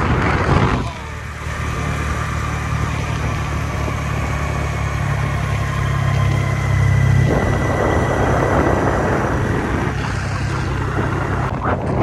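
Motor scooter engine running under way, a steady low hum with a faint whine that rises slowly; about seven seconds in the hum drops back and wind rushes over the microphone in gusts.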